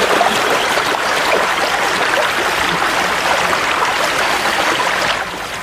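Stream water running and splashing, a steady rushing with small splashes, easing slightly near the end.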